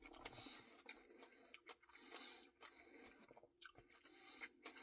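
Faint, close-up mouth sounds of eating ice cream: soft chewing with a few small clicks scattered through.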